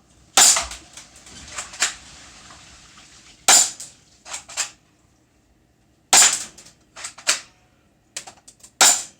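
Airsoft gun shots: four loud sharp pops about two and a half seconds apart, each followed by quieter clicks and ticks of pellets striking and bouncing. A soft hiss trails the first shot.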